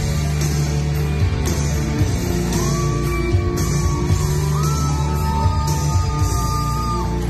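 Loud rock song played over the hall's speakers, with a steady beat about once a second; from about two and a half seconds in, long held high notes ring over it.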